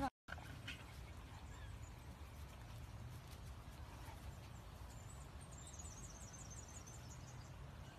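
Faint outdoor background: a low, steady rumble, with a quick run of faint, high-pitched chirps a little past halfway.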